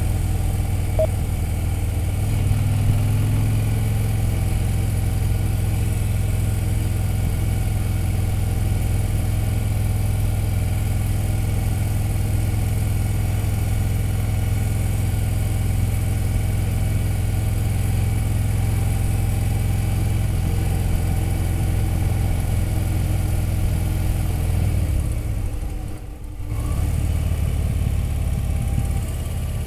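Touring motorcycle's engine running steadily at low road speed, heard from the rider's seat. Near the end the sound drops away briefly for about a second, then comes back.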